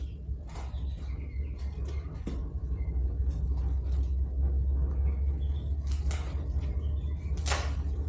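Plastic packaging rustling and crinkling in short bursts as it is handled, over a steady low rumble.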